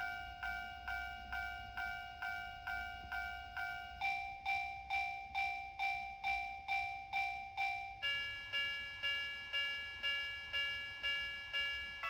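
TOMIX TCS Automatic Crossing II model level crossing sounding Japanese railway-crossing warning bells: an electronic ding repeating about two and a half times a second, each strike dying away. The bell changes to a different pitch and tone about four seconds in and again about eight seconds in, as the unit steps through its warning-sound variants.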